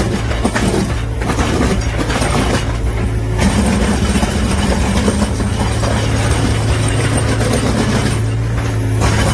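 Excavator's diesel engine running steadily under load, with a harsh constant noise from its drum milling attachment grinding a concrete surface. The grinding noise eases briefly about a second in, around three seconds in and near the end.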